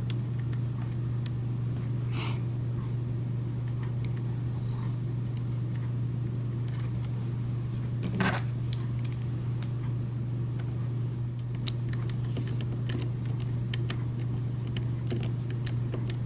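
Small clicks and taps of a screwdriver and screw being worked into the robot vacuum's plastic housing, scattered and irregular, one a little louder about halfway through, over a steady low hum.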